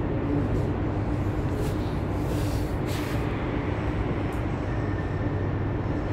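Steady mechanical rumble with a low hum and no breaks, from running machinery.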